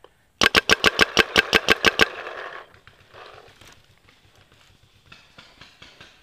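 Proto Reflex Rail paintball marker firing a rapid string of about thirteen shots, roughly eight a second, for under two seconds. Fainter scattered popping of paintball fire follows later.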